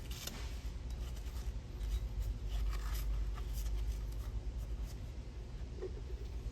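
Faint handling sounds, light scrapes, rubs and clicks, over a steady low hum.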